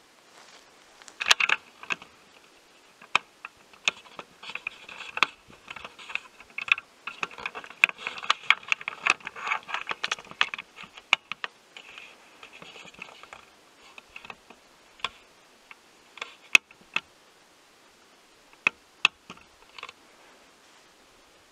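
Irregular sharp clicks and taps with bursts of scraping and rustling close to the microphone, densest in the first half and thinning to scattered clicks near the end.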